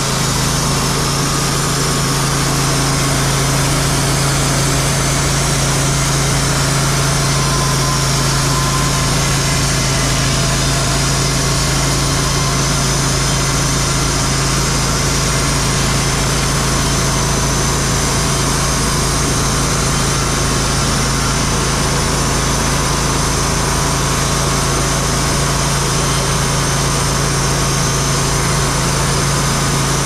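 Wood-Mizer LT40 band sawmill running steadily under load, its band blade cutting lengthwise through a cherry log as the saw head feeds along. There is an even, unchanging engine hum with no breaks.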